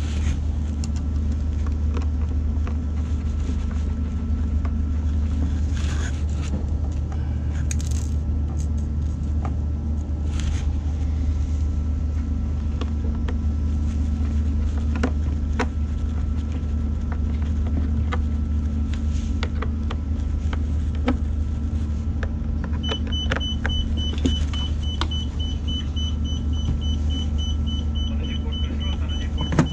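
Steady low machinery hum with scattered light clicks and taps. About three quarters of the way through, a rapid high-pitched electronic beeping starts and keeps going.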